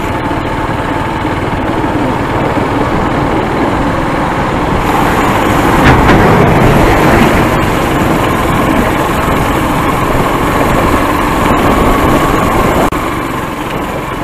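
Small vehicle engine running steadily under way on a rough, potholed dirt road, mixed with road noise, a little louder for a couple of seconds around the middle.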